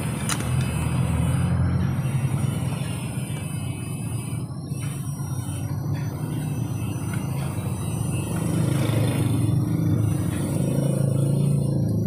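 Low, steady engine rumble of passing vehicle traffic, growing louder in the last few seconds.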